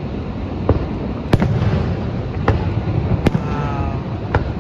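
Fireworks shells bursting in the sky: five sharp bangs at irregular intervals of about a second, over the steady rushing roar of Niagara Falls.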